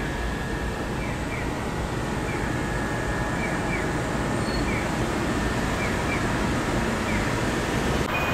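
Low steady rumble of an approaching Kintetsu Kyoto Line train, growing gradually louder, with faint high chirps every second or so.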